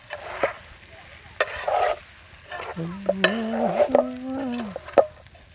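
A metal ladle stirs and scrapes fried ray fish pieces with onions and spices in an aluminium pot, with sizzling from the frying. The strokes come irregularly, several sharp scrapes against the pot. In the middle a short held tone steps up in pitch.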